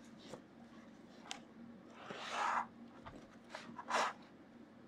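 Paper pages of a coloring book being turned and pressed flat by hand: a soft rustle about two seconds in, and a couple of short, sharper paper swishes near four seconds.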